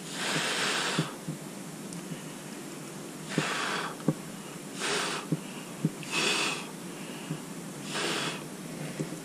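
A person blowing air from the mouth onto wet acrylic pour paint to push it out into a bloom: five short puffs a second or two apart, with faint clicks between them.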